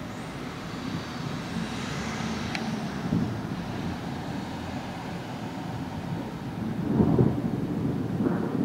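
Thunder rumbling, swelling to its loudest about seven seconds in, over a steady hiss.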